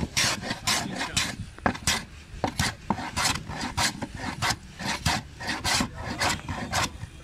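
Wooden hand plane shaving the edge of an MDF panel: a quick run of rasping strokes, about two or three a second, each cutting a thin shaving.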